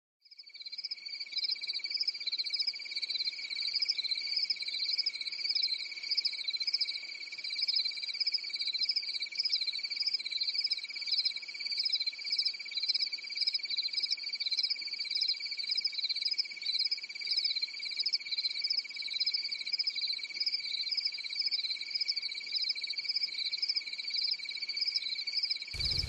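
Chorus of calling insects: a steady high-pitched trill with a higher buzz over it that pulses a few times a second, rising from silence just after the start.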